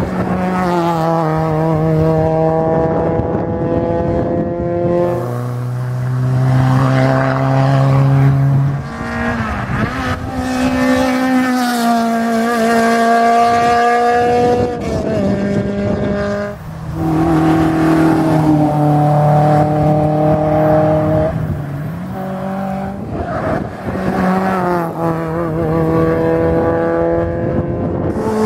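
Rally car engines running at high revs as several small rally cars pass in turn, a Peugeot 106 among them. The engine note holds steady for a few seconds at a time, then drops or jumps with gear changes and lifts off the throttle.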